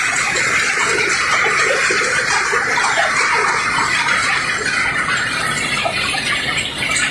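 Steady, harsh grinding and scraping of cobblestones against steel as a barge's rock cargo is unloaded.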